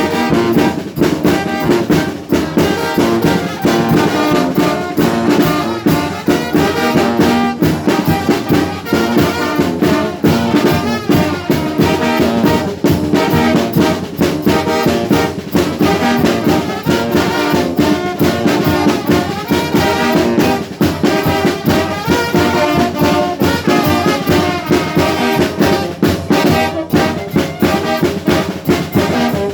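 Mexican banda, a brass band, playing an upbeat tune over a steady beat.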